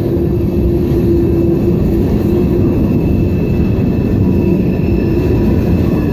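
Mixed freight cars (tank cars, a centerbeam flatcar, covered hoppers) of a manifest freight train rolling past: a loud, steady rumble of steel wheels on rail.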